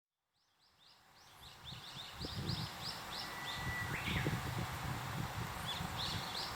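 Birds singing a rapid run of short, high chirps, with one thin, steady whistle held for under a second near the middle, over an irregular low rushing noise. The sound fades in over the first couple of seconds.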